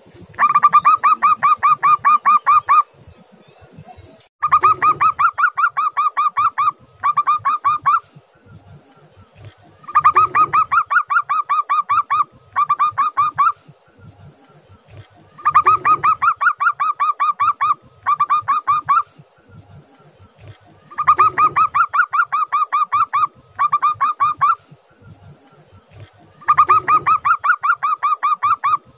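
Zebra dove (perkutut) singing its staccato cooing song six times: each phrase is a long run of rapid, even coos, a brief pause, then a shorter run, repeated about every five and a half seconds.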